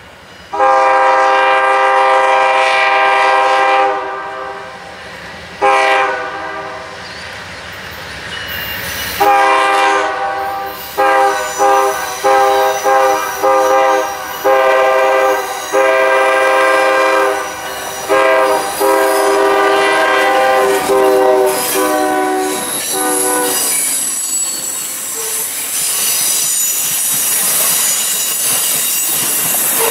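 A passenger train's multi-chime locomotive air horn sounds a long series of long and short blasts as the train approaches. About 24 seconds in the horn stops, and the passenger cars rush past with steel wheels squealing on the rails.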